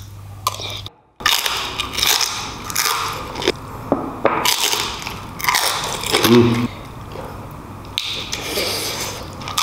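Close-miked eating sounds: biting into and chewing chunks of lechon pork, with wet smacking and crunching, and a short 'mm' hum about six seconds in.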